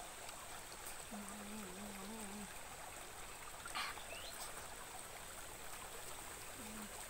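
Steady rush of running stream water, with a woman's closed-mouth 'mm' hum while eating, lasting about a second and a half from about a second in, and one brief high chirp near the middle.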